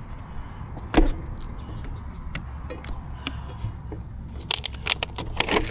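Sharp clicks and light rattling over a steady low rumble: one loud click about a second in, then a quick run of clicks and rattles near the end.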